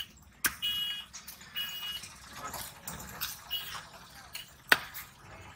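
A large fish knife striking the wooden log block while cutting a rohu: two sharp knocks, about half a second in and near the end, with quieter clicks and handling of the wet fish flesh between.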